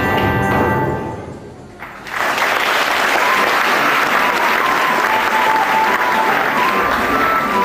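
Dance music fades out about a second in; from about two seconds in, a theatre audience applauds, with a tune playing faintly under the clapping.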